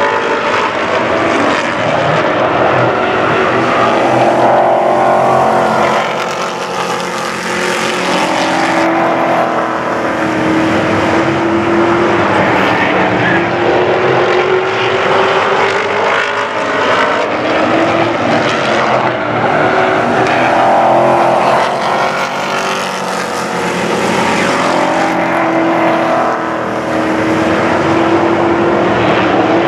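A pack of Pro Truck race trucks running at full throttle around an oval. The engine note climbs steadily for several seconds at a time, then drops back, over and over as the trucks lap.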